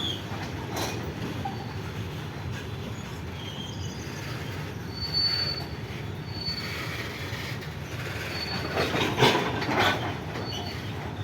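Goods train wagons rolling past with a steady rumble, short high-pitched wheel squeals coming and going, and a cluster of loud metallic clanks about nine seconds in.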